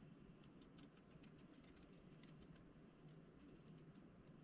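Near silence, with faint, irregular small ticks from a precision screwdriver tightening the tiny screws inside a GoPro Hero 7.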